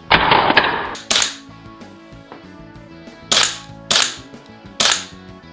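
GBLS DAS GDR-15 electric blowback airsoft rifle firing single shots, each a sharp bang as the bolt slams forward. A heavier, longer burst comes right at the start, then four sharp cracks at uneven intervals, over faint background music.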